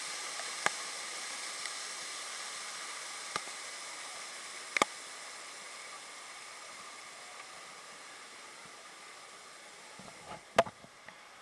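Rushing water of an artificial waterfall in a lazy river, a steady hiss that slowly fades as the tube drifts away from it. A few sharp taps break through it, the loudest near the end.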